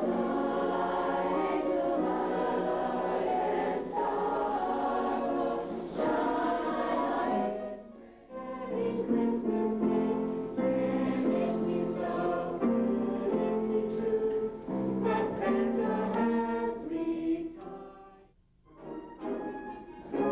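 A high school choir singing in parts. About eight seconds in, the singing breaks off and another choral passage starts. Near the end it dies away briefly and a concert band begins playing.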